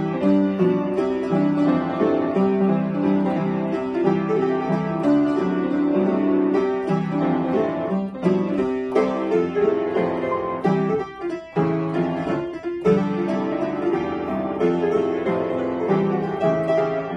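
Upright piano played solo: a medley of Japanese children's songs, melody over chords in a steady rhythm, briefly thinning out about two thirds of the way through.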